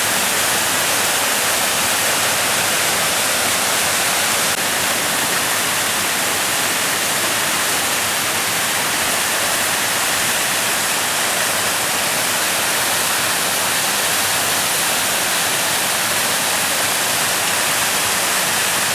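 Steady rush of water falling from a waterfall that is about 80% frozen over, with water still running down through the ice.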